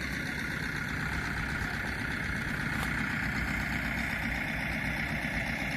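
An engine idling steadily, with a low rumble.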